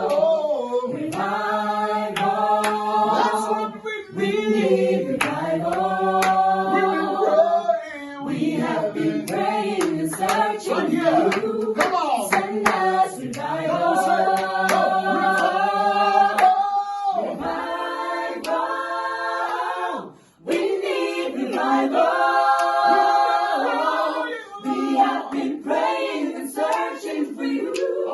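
A choir sings a worship song, with hands clapping along. The singing breaks off briefly about 20 seconds in, then resumes.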